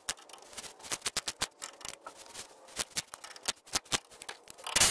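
Ratchet wrench clicking in quick, irregular strokes as a bolt under the truck is worked loose, with one short, louder burst near the end.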